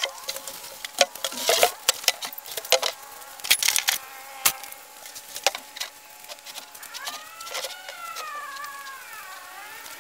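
Empty plastic drums knocking and scraping in a quick run of sharp hollow knocks as they are set onto a wooden board. A buzzing insect flies close, its pitch rising and falling, clearest near the end.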